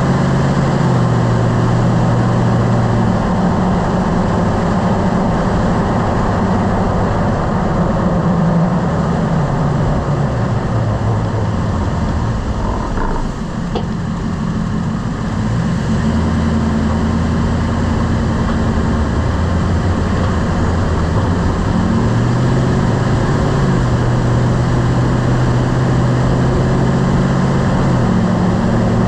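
Lifted truck driving: steady engine and road noise, the engine note stepping up and down several times. About halfway it briefly eases off, with a single faint click.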